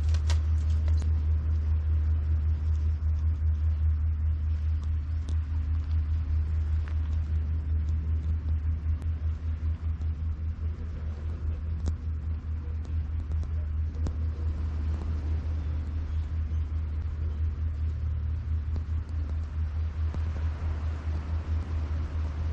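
A steady low rumble with a rapid, uneven flutter.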